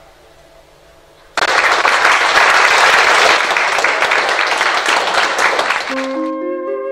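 Audience applauding, breaking out suddenly about a second and a half in and carrying on for several seconds before fading under flute music near the end.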